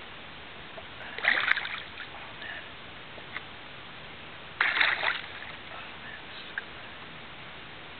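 Hooked smallmouth bass splashing at the water's surface while being played on a rod, two short splashes, about a second in and again near the five-second mark.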